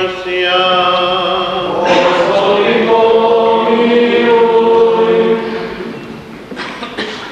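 Church choir chanting a liturgical hymn in long held notes, fading out near the end.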